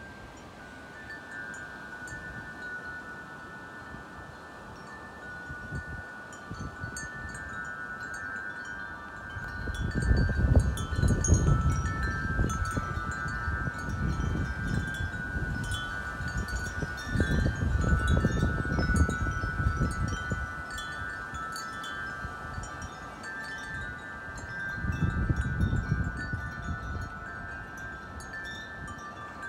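Wind chimes ringing continuously in strong wind, many overlapping notes sounding at once. Loud gusts of wind hit the microphone with a low rumble several times, the strongest about ten seconds in and again near the middle and toward the end.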